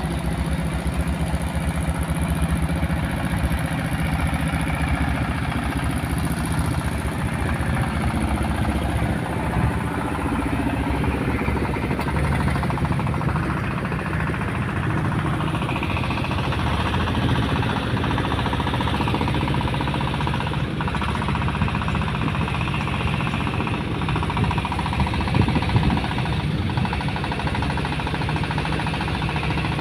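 Wooden ferry boat's engine running steadily, with a rapid, even knocking beat.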